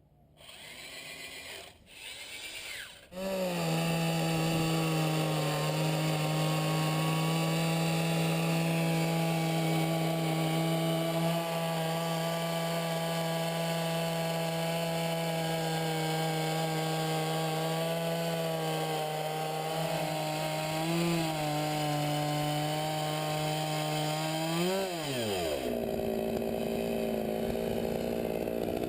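Two-stroke chainsaw on a chainsaw mill, running at steady full revs while ripping a log lengthwise, after two brief shorter bursts at the start. Near the end its pitch drops sharply and a lower steady tone follows.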